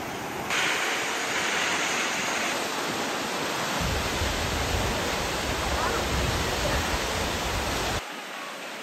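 A tall waterfall's falling water rushing steadily, louder after a cut about half a second in and softer after another near the end. A low rumble joins it about four seconds in.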